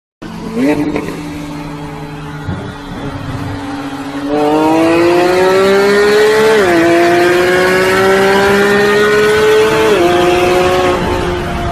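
A car engine running, then accelerating hard from about four seconds in, its pitch climbing steadily and dropping sharply at two gear changes.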